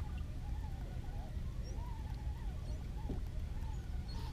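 Spinning reel being cranked while playing a hooked fish, its gears giving a faint thin whine that wavers up and down in pitch, over a steady low rumble.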